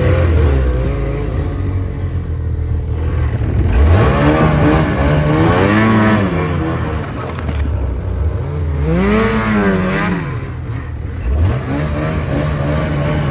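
Ski-Doo snowmobile engine running under way, revving up and easing back off twice, about four and nine seconds in.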